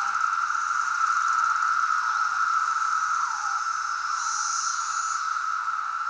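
Chorus of periodical cicadas: a steady shrill drone with calls that slide down in pitch about once a second, and a higher buzz swelling up about four seconds in.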